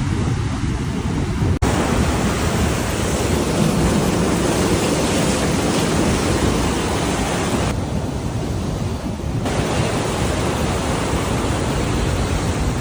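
Storm wind and heavy surf making a loud, steady rushing noise, with wind buffeting the microphone. The sound cuts abruptly about one and a half seconds in, and its character shifts briefly around eight seconds, as one clip gives way to the next.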